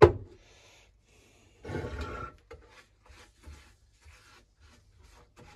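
A sharp knock right at the start, then a paint brush rubbing and scraping over the painted metal of the stove case as paint stripper is worked on, loudest for about half a second around two seconds in, with faint taps and handling noises after.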